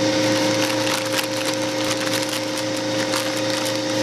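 Plastic zip-top bag crinkling and crackling as a hand works a chicken breast around in the flour inside it, with a steady hum underneath.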